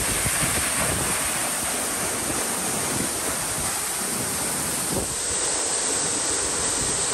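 Waterfall's steady rush of falling water, a loud, even noise.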